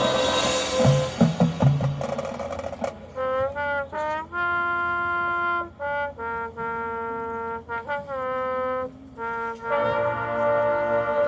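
High school marching band brass playing: a loud full passage with percussion hits, then, about three seconds in, a thinner stretch of held brass chords with short slides between notes, the fuller sound returning near the end.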